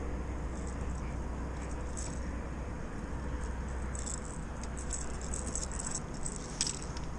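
Small hard objects clicking and rattling as they are handled, a few scattered clicks at first, then a dense run of quick clicks in the second half with one sharper click near the end, over a steady low rumble.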